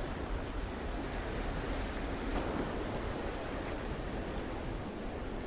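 Sea waves washing steadily against the shore, with wind buffeting the microphone.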